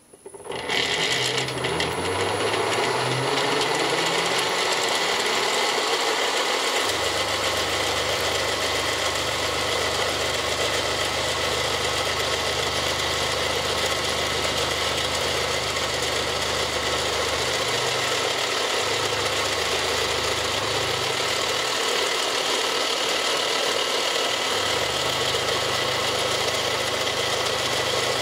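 Milling machine running with a spiral end mill cutting fast into a block of plastic (polyethylene/polypropylene), a loud steady cutting noise that starts sharply within the first second. A low hum joins about seven seconds in and drops out briefly a few times.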